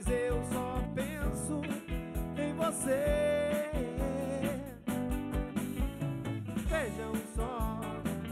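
Live band playing a song: a drum kit keeping a steady beat under electric bass and electric guitars, with a male lead vocal carrying the melody.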